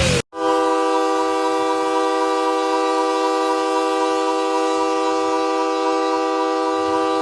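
Hockey arena goal horn, a multi-tone air horn sounding several notes at once as one steady chord. It starts abruptly about a quarter second in and is held without change in pitch or loudness, signalling a goal.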